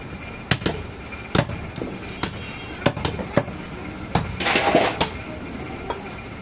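Butcher's cleaver chopping mutton in sharp, irregular strikes, about ten in the first four seconds. A louder, rasping noise lasting under a second comes about four and a half seconds in, and one more strike comes near the end.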